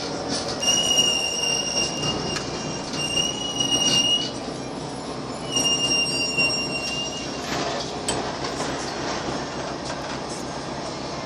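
New Flyer D40LFR transit bus's brakes squealing with a high steady tone as the bus slows to a stop: one stretch of about three and a half seconds, then a shorter one of about a second and a half, over the steady running noise of the bus.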